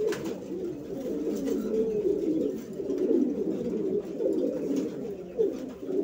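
Domestic pigeons cooing, several low wavering coos overlapping without a break, as a cock pigeon circles and bows to a hen in courtship.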